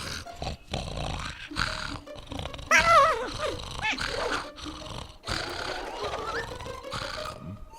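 Cartoon animal sound effects: rough growling and snarling over a noisy commotion, with a wavering cry about three seconds in.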